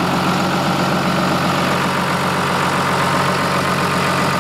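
John Deere 6068 six-cylinder diesel idling steadily. The engine has heavy blow-by and, by the mechanic's check, at least one dead cylinder, though it sounds fairly good.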